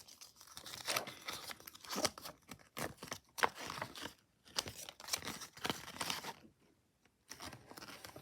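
Plastic packaging bags of toy building bricks crinkling and rustling in irregular bursts, with small sharp clicks, as they are handled. There is a brief lull about six and a half seconds in.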